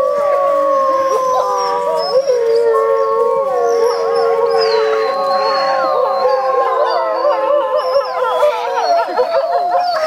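A pack of wolves howling in chorus: several long, slowly falling howls held at the same time, overlapping one another. Shorter, wavering calls crowd in about halfway through.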